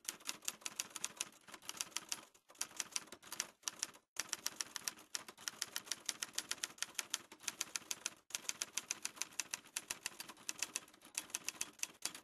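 Typewriter keys striking in a rapid, even run, several strokes a second, with a few brief pauses.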